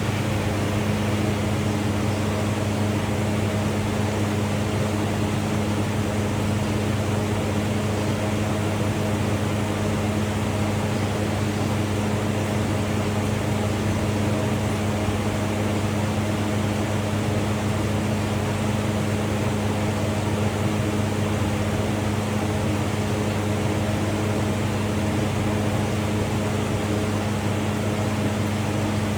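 A steady low hum with a few fainter higher tones above it, not changing at all.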